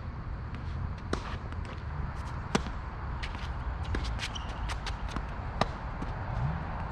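Tennis rally on a hard court: sharp pops of racket strings hitting the ball and the ball bouncing, loudest about two and a half and five and a half seconds in, over a steady low rumble.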